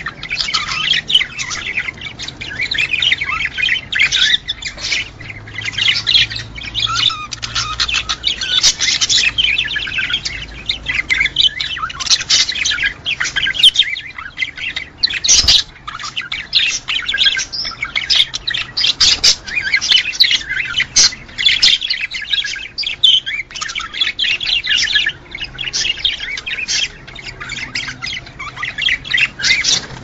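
Budgerigars chattering and warbling: a dense, continuous stream of rapid chirps and squawks with no pause.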